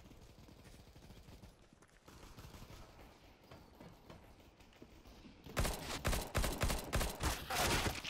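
Video game gunfire: a rapid run of automatic shots begins about five and a half seconds in, after a few quiet seconds.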